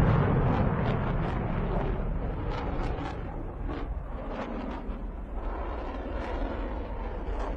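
Heavy rumble from an aeroplane crash fading away over several seconds, with scattered crackles and pops throughout.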